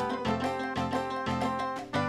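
Background music: steady held tones over a low line whose notes change about twice a second.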